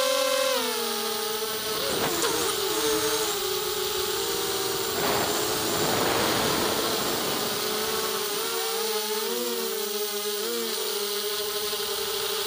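Brushless motors and 5-inch props of a 260 mm FPV mini quad whining, picked up by its onboard camera. The pitch drops about half a second in, then wavers up and down several times as the throttle changes, with a burst of wind rush around the middle.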